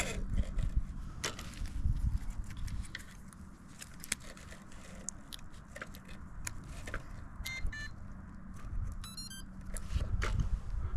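Scattered clicks and handling noise over a low steady hum. Short electronic chirping beeps come about two-thirds of the way in, and again about a second later.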